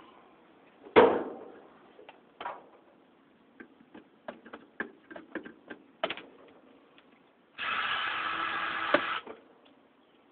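Scattered clicks and knocks from working on a ceiling fan's metal parts, with one loud metallic knock that rings briefly about a second in. Near the end comes a steady mechanical whirr lasting about a second and a half.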